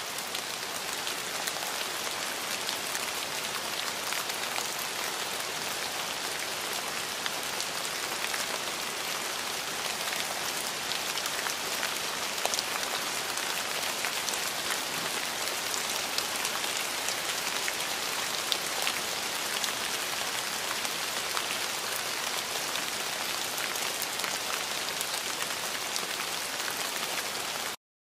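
Steady rain: an even hiss with faint pattering drops that stops abruptly near the end.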